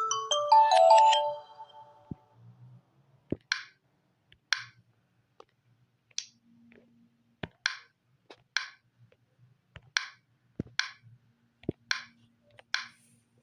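A chiming, marimba-like alarm tone from a Samsung Galaxy Tab A9's speaker ends about a second in. It is followed by a string of short, bright clicks, roughly one a second, with a few faint low thumps.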